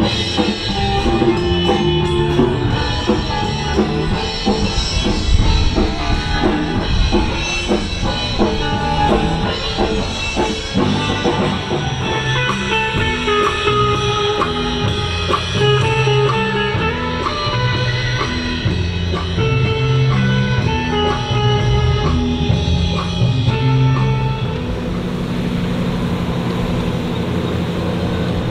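Rock backing music with electric guitar and drum kit. About 24 seconds in the music ends and a steady engine-like running sound with a low hum takes over.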